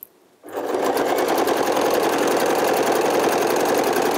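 Domestic electric sewing machine starting about half a second in and then running steadily at speed with a fast, even needle rhythm, stitching a straight seam through two layers of cotton fabric.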